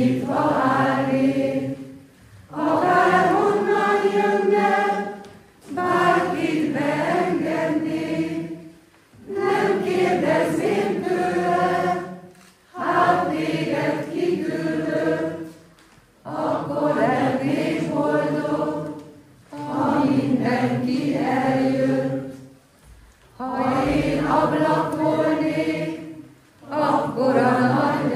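Choir singing unaccompanied in short phrases of two to three seconds, with a brief pause between each.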